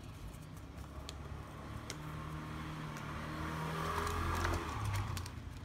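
A motor vehicle's engine going by, growing louder to a peak about four to five seconds in and then fading. Light clicks of a plastic Polaroid film pack and its paper card being handled are heard over it.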